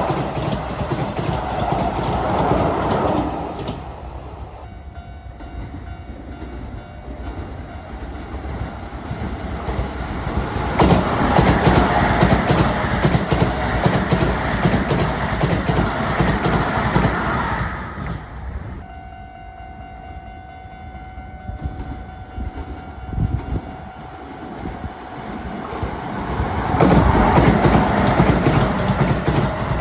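Keisei electric trains running over a level crossing, wheels clattering on the rails, loud near the start, through the middle and again near the end. Between the trains a level crossing's warning signal keeps sounding in steady tones.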